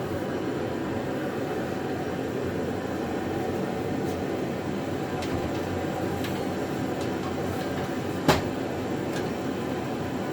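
A steady low rumble of background noise, with a few light clicks and one sharp metallic knock about eight seconds in as welding cart parts are handled.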